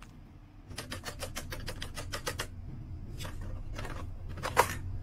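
Plush toy hen worked by hand: a quick run of even clicks, about ten a second, for about two seconds, then three short bursts, the last the loudest.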